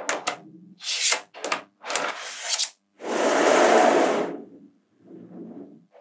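Small magnetic balls being handled on a hard tabletop: a few short rubbing, scraping bursts as strips of balls are slid and pressed into place, then a longer, louder rubbing rattle of about a second and a half about three seconds in, and a quieter one near the end.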